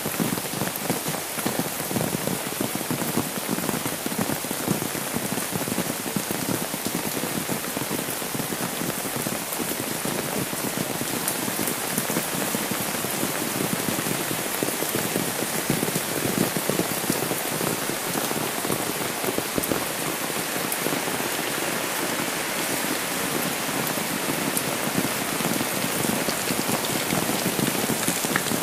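Steady rain, a dense, even patter of drops on an umbrella held overhead and on the wet paved lane.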